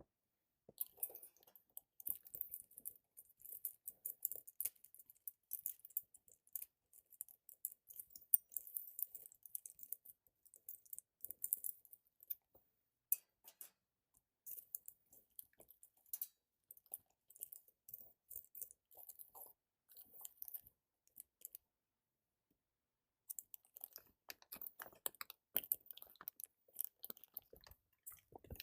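Faint crinkling and clicking of a graphics card's retail packaging handled up close, as the box and its plastic and foam inserts are opened. It stops for a moment a little past two-thirds of the way through.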